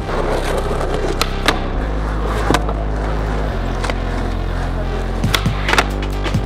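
Skateboard wheels rolling on concrete, with a few sharp clacks of the board popping and landing, more of them in a cluster near the end. Background music with slow held bass notes plays throughout.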